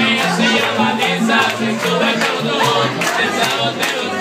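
Live mariachi band playing a lively, steady rhythm: a bouncing bass line under evenly strummed chords, with singing and crowd voices over it.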